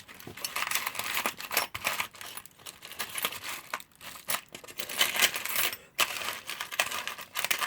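A hand rummaging through a box of small loose parts while searching for a small washer: a steady scatter of irregular clicks and clinks as the pieces are stirred and moved about.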